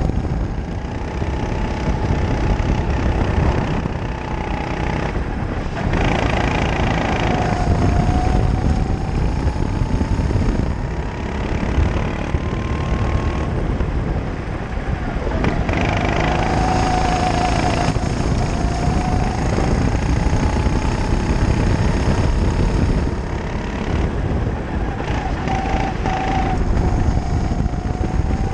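Kart engine running hard through a lap. Its pitch climbs steadily for several seconds on the straights, then drops quickly when the throttle comes off for the corners, several times over, with a steady rush of wind and road noise underneath.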